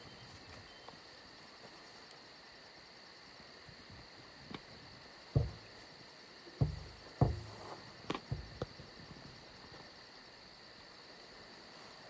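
Crickets chirping steadily: a continuous high trill with a faster pulsing buzz above it. A handful of short, dull thumps break in around the middle.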